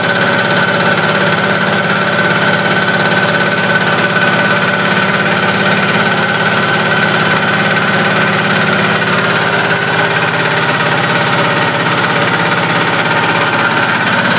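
Aebi TP1000A's MAG 1071 single-cylinder air-cooled diesel running steadily while the transporter drives along, a rapid even chugging with a steady high whine over it. The engine is running on a repaired cracked crankcase, a known weakness of this engine after about 2000 hours.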